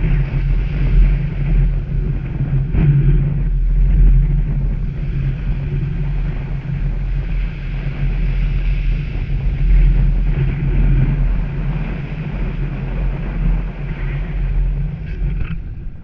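Small waves breaking and washing up a sandy shore, rising and falling in slow swells, with heavy wind noise on the microphone underneath.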